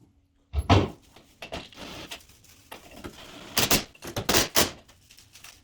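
A run of knocks and clicks: a sharp knock about half a second in, then scattered clatter and rustling, with the loudest strikes in the second half.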